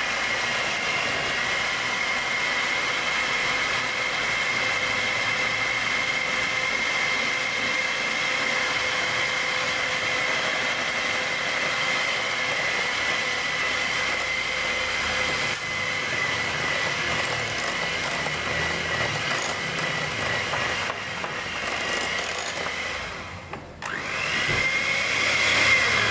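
Electric hand mixer running steadily with a high motor whine, its beaters whipping a creamed butter mixture in a glass bowl. Near the end it cuts out briefly, then speeds up again and winds down.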